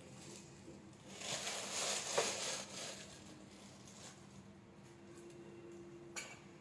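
Clear plastic packaging wrap crinkling and rustling as chair parts are handled and pulled out of it, loudest between about one and two and a half seconds in, with a short sharp click near the end.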